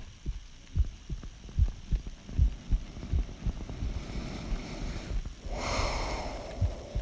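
Human heartbeat heard up close: a steady run of low paired lub-dub thumps, a little more than one beat a second. From about four seconds in, a rush of hissing noise rises over the beats and fades out again near the end.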